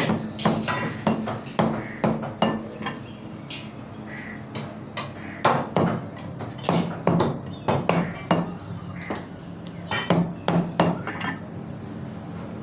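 Heavy butcher's cleaver chopping goat meat on a thick wooden chopping block: sharp chops at about two a second, in three runs with short pauses between them.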